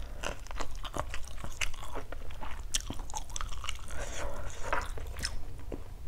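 A person chewing a mouthful of food, with many small irregular mouth clicks and smacks.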